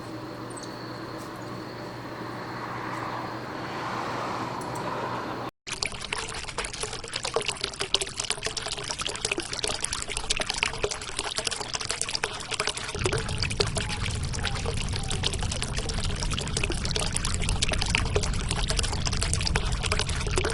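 Spring water pouring and splashing steadily. It comes in after an abrupt cut about five seconds in; before that there is only a faint steady high whine and hum.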